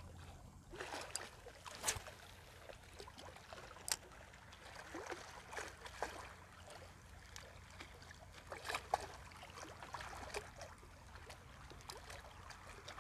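Faint water lapping and trickling against the rocks at the water's edge, with scattered sharp clicks and taps, the loudest about two, four and nine seconds in.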